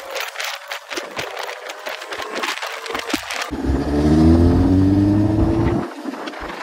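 Wind crackling and buffeting the microphone on a moving motorcycle. About three and a half seconds in this abruptly gives way to the motorcycle's engine accelerating, its pitch rising for about two seconds before it drops away.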